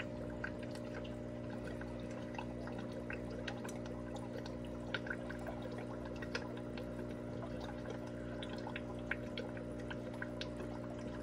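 Aquarium sponge filter bubbling: a steady trickle of water broken by irregular small pops and drips, over a steady low hum.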